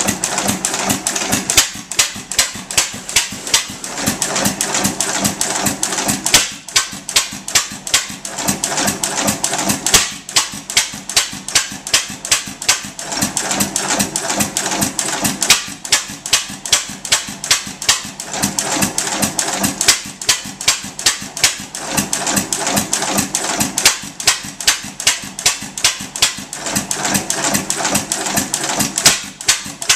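3 1/2 HP Gould, Shapley & Muir hit-and-miss gas engine running, with a fast, even clicking and ticking and louder beats at regular intervals. Heavier stretches come and go every few seconds.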